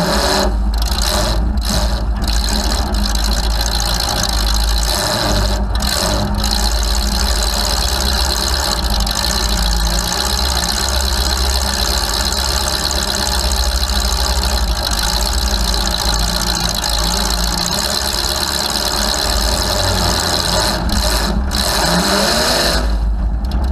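Demolition derby car's engine idling loudly through open vertical exhaust stacks poking up through the hood, heard from close above them.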